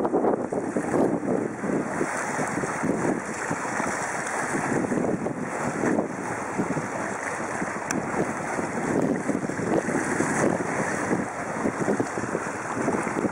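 Wind buffeting the microphone, with the choppy sea washing below it as a steady rushing noise that swells and dips.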